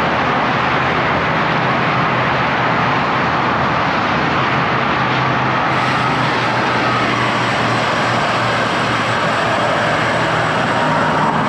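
Steady traffic noise from vehicles on the freeway lanes beside the road, heard from a bicycle riding along the concrete frontage road.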